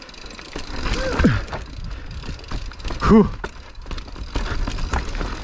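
Mountain bike ridden down a rough, technical trail: tyre noise and uneven knocks and rattles as it rolls over roots and rocks. It is broken by two short wordless vocal sounds from a rider, one about a second in and a louder one about three seconds in.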